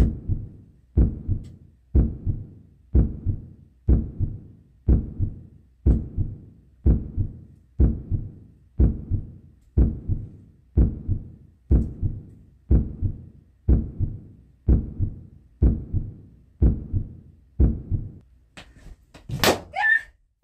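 Steady low thumps about once a second, like a slow heartbeat. Near the end comes a sharp pop with a rising swish as a yellow latex balloon bursts under a shoe.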